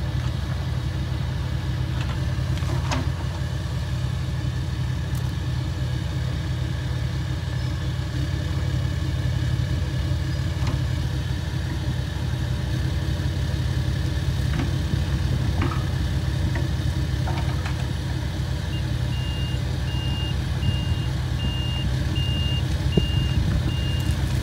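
Mini excavator's engine running steadily while it works at a tree and its roots. A machine's reversing alarm starts beeping about two-thirds of the way through, at about two beeps a second.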